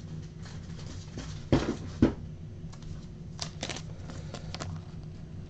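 Handling of a stack of Topps Finest chromium baseball cards: two dull knocks about a second and a half in, then a few light, crisp card clicks, over a low steady hum.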